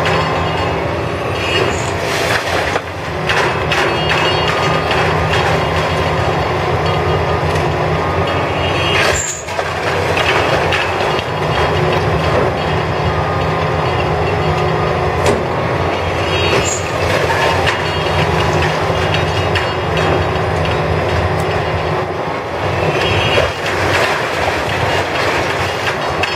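Heavy demolition machinery at work: a diesel engine running with a steady low drone, under frequent metallic knocks and clanks.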